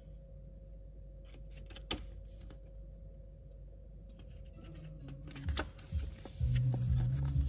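Paper CD booklet being handled and its pages turned: soft rustling with a few sharp clicks. Background music comes back about six seconds in.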